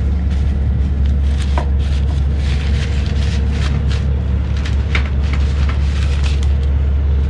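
Fabric rustling and scattered light clicks as hands work the drawstring of a cloth rod bag and slide a fishing rod out of it, over a steady low rumble.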